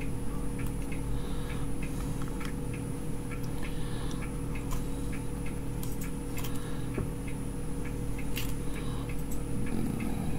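Steady electrical hum with a faint high-pitched whine, overlaid by scattered small ticks and clicks from a circuit board being handled in the fingers.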